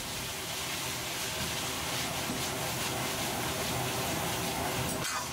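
Braised pork intestines, green peppers and sauce sizzling in an iron wok over high heat as they are stir-fried, a steady hiss while the last of the sauce cooks down.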